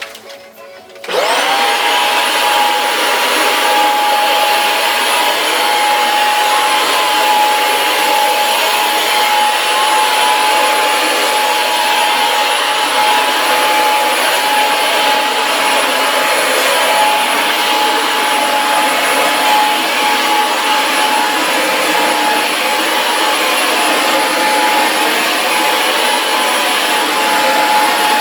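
Vacuum cleaner switched on about a second in, its motor whine rising quickly to a steady high pitch, then running steadily with a constant rush of air.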